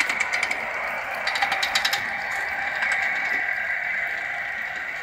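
3.5-inch gauge Atlantic live-steam locomotive running on raised miniature track: a steady steam hiss with two spells of rapid, even clicking beats, at the start and again about a second and a half in, easing off slightly toward the end.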